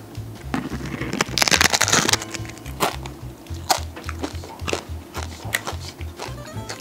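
A crisp bite into a giant homemade oven-baked potato chip, with a loud crackling crunch about a second and a half in, followed by a few sharp crunches of chewing. Background music plays throughout.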